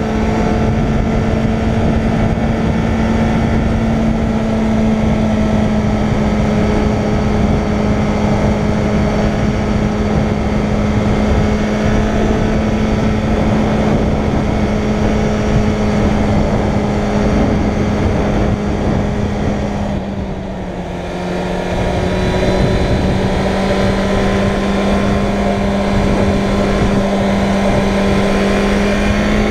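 Suzuki Bandit 600's inline-four engine running at a steady pitch under cruising throttle, with wind noise rushing over the microphone. About two-thirds of the way through the throttle eases briefly, dropping the pitch and level a little, then picks up again.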